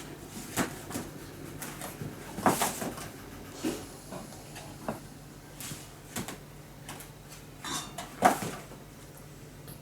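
A cardboard tissue box being handled and played with: scattered short knocks and rustles every second or two, the loudest about two and a half seconds in and again near the end.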